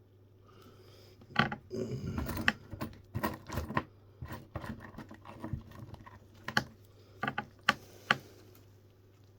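Small hand tools clicking and tapping against a small watch movement and the bench, in irregular sharp clicks with a brief scrape, as the work turns to getting the dial off.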